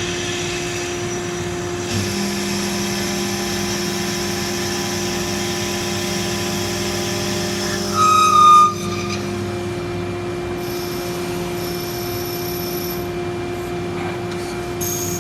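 Automated lathe running a threaded brass part: a steady machine hum with changing cutting tones over it, and a brief, louder high-pitched squeal about eight seconds in.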